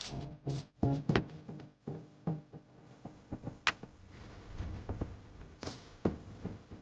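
Irregular knocks and taps of wood being worked and handled, with a few sharp strikes and some softer low thuds between them.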